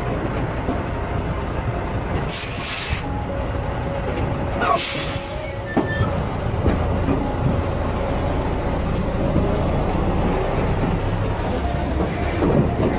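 Steady low rumble around a loaded cattle truck, with two short loud hisses about two and five seconds in.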